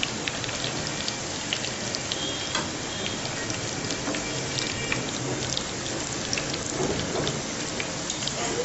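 Spinach leaves in gram-flour (besan) batter deep-frying in hot oil, a steady sizzle full of small crackling pops.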